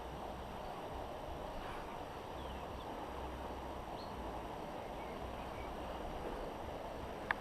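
Steady outdoor noise by a river, with wind rumbling on the microphone now and then. A few faint bird chirps come through, and a single sharp click sounds near the end.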